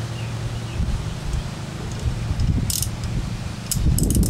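Hand tools and small metal parts being handled: light clinks and a few sharp metallic clicks, closer together near the end, over a steady low hum.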